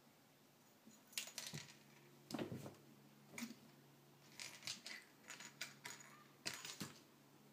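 A kitten pouncing on and batting a small hard toy, a little red ball or bead, on a blanket over a hardwood floor: quiet, irregular clicks and taps with short rustles of the fabric, in several bursts.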